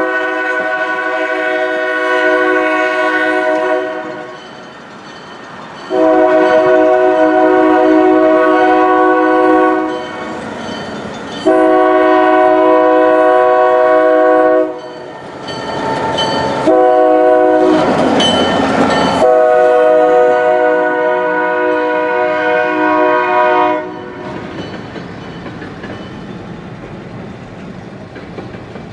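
EMD GP9 diesel locomotive's air horn sounding four blasts for a road crossing, the last held longest. After the horn stops, the locomotive and its freight cars rumble past at a lower level.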